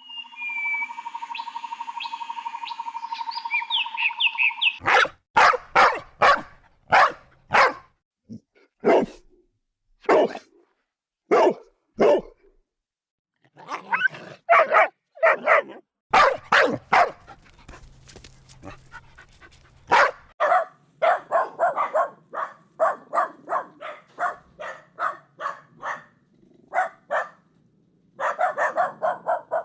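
Dogs barking: single sharp barks about a second apart, then faster runs of yapping barks in the second half. It opens with about five seconds of a steady high tone with chirping glides above it before the barking starts.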